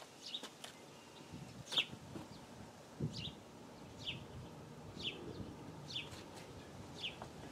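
A bird calling a short, high, falling chirp about once a second, with a few faint knocks underneath.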